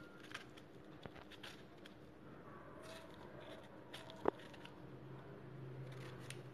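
Faint handling of a pomegranate in the hands, with soft clicks and rustles and one sharp click a little after four seconds in, as a kitchen knife is set to the rind to score it near the end.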